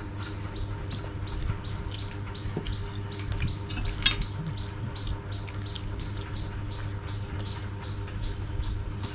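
A metal spoon clinks once on a ceramic bowl about four seconds in, over a steady low hum and a fast, even ticking about four times a second.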